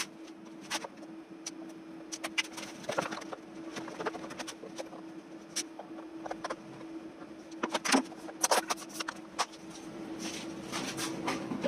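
Plastic cable trunking cover being unclipped and pulled off its base: a scattering of small plastic clicks and snaps, the loudest cluster about eight seconds in, over a steady faint hum.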